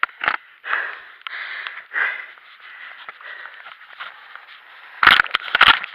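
Climber's heavy breathing, hard breaths in and out about once a second while scrambling up steep rock. A few loud sharp knocks and scrapes near the end.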